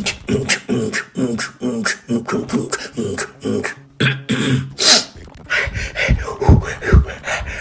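Beatboxing: a person's mouth making a quick run of rhythmic drum sounds, with clicks and sharp hissing hits over hummed notes and a few deep bass kicks near the end.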